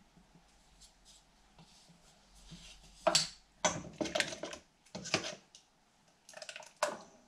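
Metal ladle stirring pancake batter in a metal bowl, clinking and scraping against the bowl in a handful of sharp knocks from about three seconds in.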